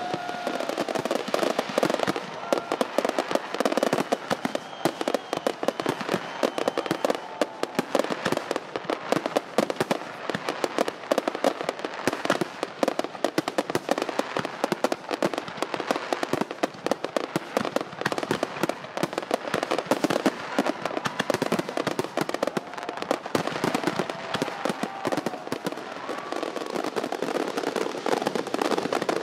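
Fireworks going off without pause: a dense, continuous crackle of many small pops and bursts at a fairly even level.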